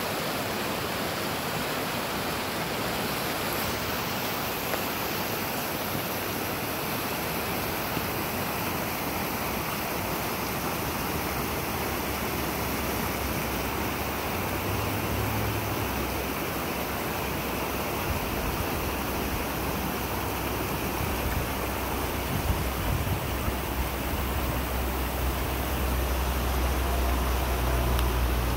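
Shallow, fast mountain river rushing over rocks and riffles: a steady, full rush of water. A low rumble grows under it in the second half.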